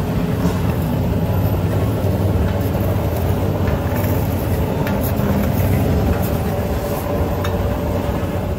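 City street ambience dominated by a steady low rumble of vehicle engines in traffic, with a few faint clicks and clatters.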